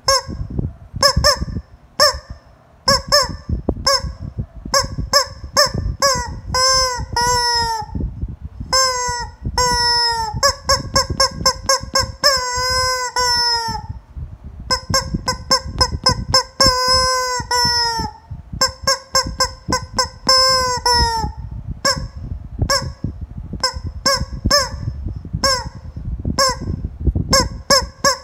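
A hen calling loudly over and over: a quick run of short honking calls, broken by several longer drawn-out calls of about a second that sag a little in pitch at the end.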